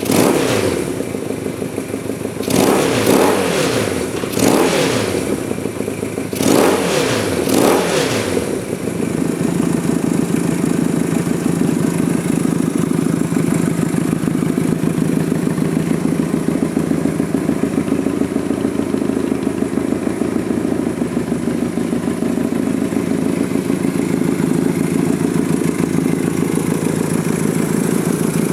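1972 Honda CB175's parallel-twin engine running on its first start of the restoration. It is blipped up and down in revs four or five times, then settles into a steady idle after about eight seconds.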